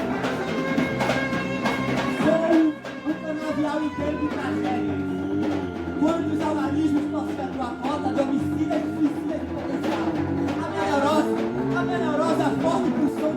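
Live instrumental music: guitar playing wavering, sliding lines over hand percussion.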